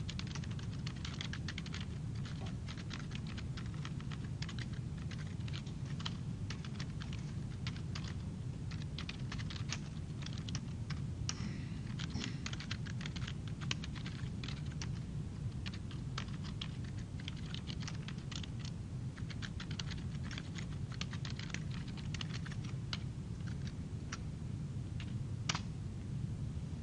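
Computer keyboard typing in quick, irregular keystrokes, over a steady low hum.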